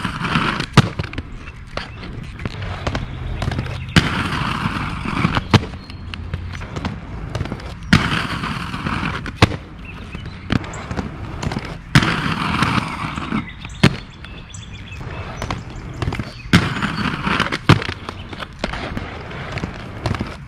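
Aggressive inline skate frames grinding along a rough concrete ledge, a crunchy scrape lasting a second or two. This happens about five times, each grind marked by sharp clacks as the skates lock onto the ledge and land back on the pavement. Skate wheels rumble on the concrete path in between.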